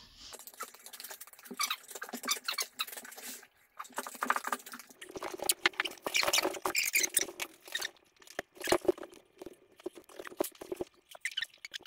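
Fast-forwarded timelapse sound of a person and a large dog tussling on a rug: a dense, rapid patter of clicks and rustles with squeaky, chattering high-pitched bits.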